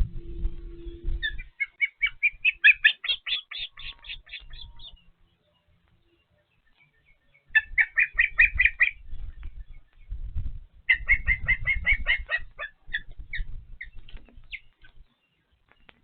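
Ospreys calling at the nest: three bouts of rapid, high, whistled chirps, with single chirps trailing off near the end. Low rumbling noise sits under the calls, and a brief steady low hum sounds in the first second.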